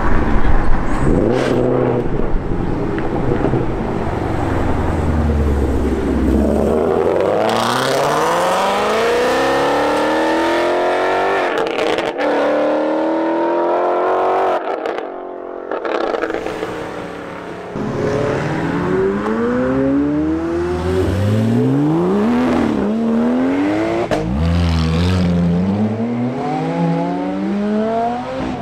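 Ford Mustang Mach 1's 5.0-litre V8 burbling low at first, then accelerating hard from about seven seconds in, its pitch climbing with a drop at each upshift. After a short lull, more hard acceleration follows near the end, revs rising and falling through quick gear changes.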